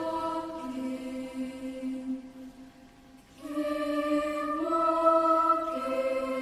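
Girls' choir singing slow, sustained chords. The first phrase fades away about two and a half seconds in, and a fresh phrase enters about a second later, moving through a few held chords.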